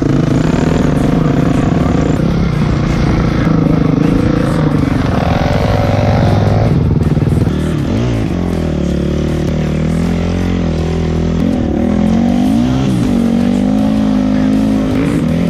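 Dirt bike engine running under load through deep snow, the revs rising and falling several times, most clearly about halfway through and again near the end.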